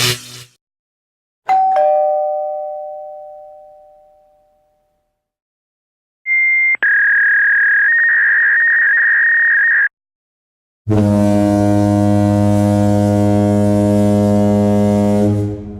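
A series of separate stock sound effects. A two-note ding-dong doorbell chime, high then lower, rings out and fades. Next comes a steady high electronic tone lasting about three seconds, then a loud, steady low buzz of about four and a half seconds that stops abruptly.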